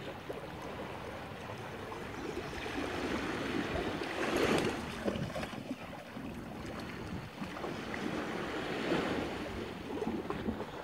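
Small waves washing against a rocky shore, swelling about halfway through and again near the end, with wind noise on the microphone.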